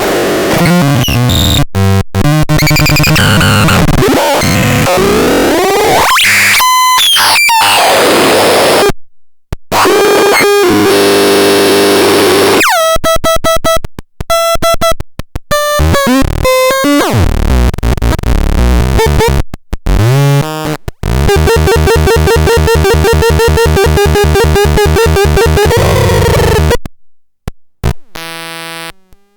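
BELZEBULON B electronic noise instrument putting out harsh, buzzing synthesized tones that sweep up and down in pitch and stutter in fast pulses, broken by several abrupt cut-outs to silence, one about nine seconds in and another near the end.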